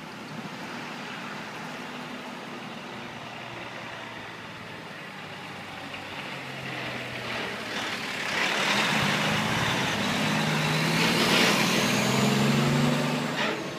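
Gasoline tanker truck driving past, its engine and tyres getting louder as it approaches and loudest in the last few seconds, with a high whine that rises and then falls near the end.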